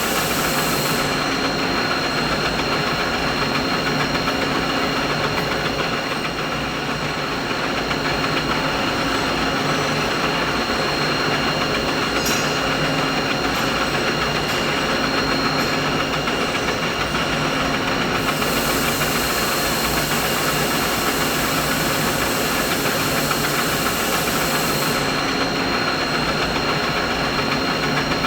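Steady mechanical drone: continuous machine noise with several steady tones, including a thin high whine. A faint high hiss above it drops out about a second in, comes back past the middle, and drops out again near the end.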